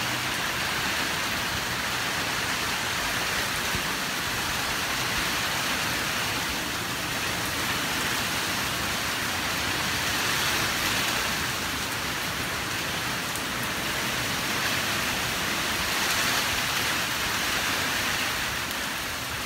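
Steady rain falling from a tropical storm, swelling slightly in loudness about halfway through and again near the end.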